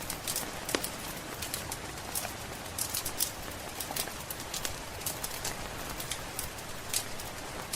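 Wood fire crackling, with irregular sharp pops and snaps several times a second, over a steady hiss of rain.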